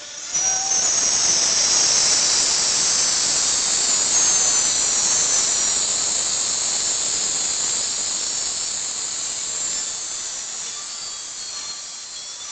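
A stadium crowd's mass release of long rocket balloons, all whistling and hissing as they deflate and shoot upward. A dense rush of high, downward-gliding whistles starts suddenly and slowly dies away as the balloons fall.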